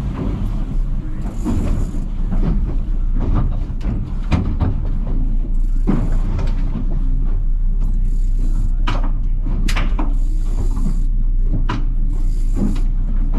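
Boat engine running steadily under wind and water noise, with occasional knocks and short bursts of hiss.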